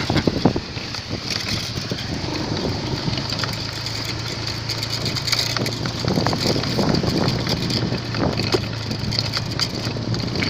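Motorcycle engine running steadily as a low hum, under a constant noisy hiss with scattered small knocks.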